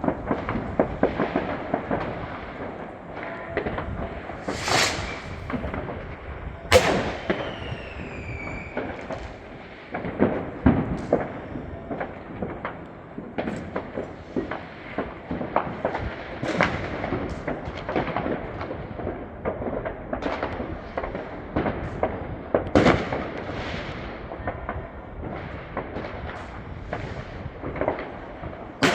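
New Year's Eve fireworks: a continuous crackle of firecrackers with several louder bangs scattered through. About seven seconds in, a whistling firework glides down in pitch.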